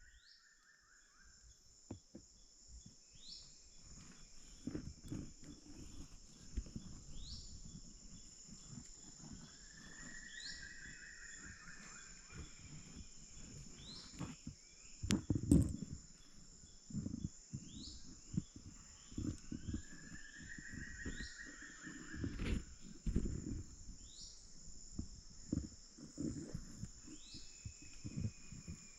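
Rainforest insects droning in a steady high band. Over it a bird repeats a short rising whistle about every two seconds, and a longer arched call comes about every ten seconds. Low thumps and rustling come and go, with the loudest knock about halfway through.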